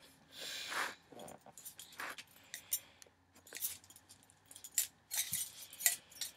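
Close handling noise: light rustling with scattered small clicks and clinks, and a couple of short hissing swells.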